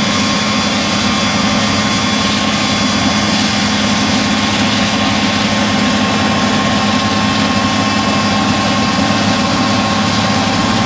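Heavy farm machine engine running steadily at constant speed, a loud even drone with a steady whine over it.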